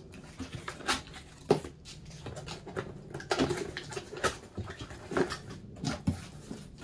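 Cardboard box being opened and handled: flaps pulled back and the box shifted, giving irregular taps, scrapes and rustles, with one sharper knock about a second and a half in.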